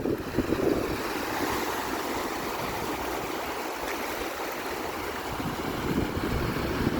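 Sea surf washing steadily, a continuous rush of breaking and receding waves.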